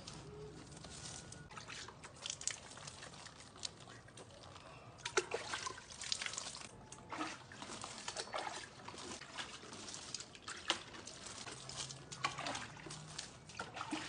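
Water poured from a bucket onto soil, splashing and trickling in uneven spurts that grow heavier about a third of the way in.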